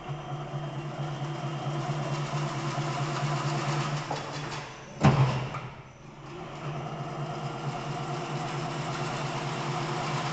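Chain-link wire mesh weaving machine running: a steady motor hum under a rhythmic mechanical clatter. About five seconds in there is a single loud clank, after which the running sound dips briefly and builds up again.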